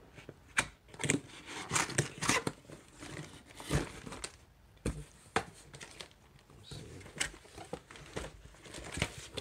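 Cardboard box being opened and handled, its flaps and inner cardboard scraping, with the plastic bag of papers inside crinkling. It comes as a string of short rustles and taps.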